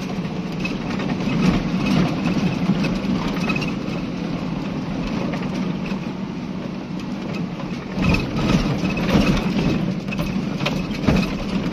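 Vehicle engine running steadily as it drives slowly over a rough, stony dirt track, heard from inside the cabin, with the crunch of tyres on gravel. A run of knocks and rattles from bumps in the track comes in the last few seconds.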